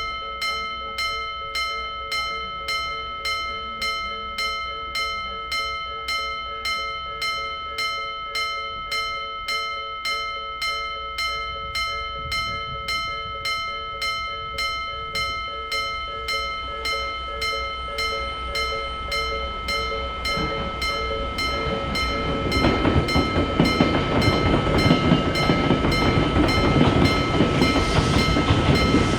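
Japanese level-crossing warning bell ringing its steady "kan-kan" at about two strikes a second. From about two-thirds of the way in, a passing train's rumble builds and grows loud over the bell.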